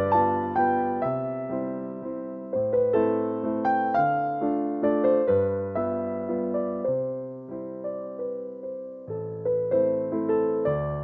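Background piano music: a slow, gentle melody of struck notes over a changing bass line.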